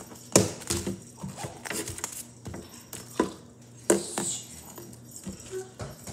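Headbands and hair accessories being shuffled around on a tabletop: rustling and handling noise with several sharp knocks, the loudest about half a second in and again around three and four seconds in.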